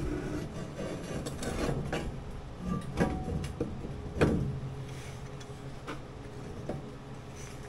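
Metal clanking and knocking from hand fabrication work, with sharp hits about three and four seconds in, over a steady low hum.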